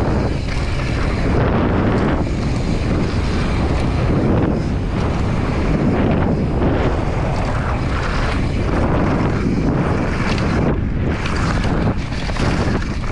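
Wind rushing loudly over an action camera's microphone as a downhill mountain bike runs fast down a dirt trail, with tyres on dirt and frequent knocks and rattles from the bike over bumps.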